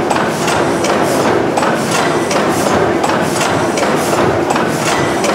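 Large slow-speed stationary gas engine, the 600 horsepower Snow engine, running with an even, rhythmic clacking of its valve gear and crank, about two beats a second, over a steady mechanical hum.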